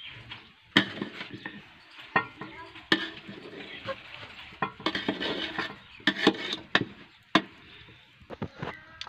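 Metal slotted spoon stirring cooked rice in an aluminium pot, scraping and knocking against the pot's side with repeated sharp clinks.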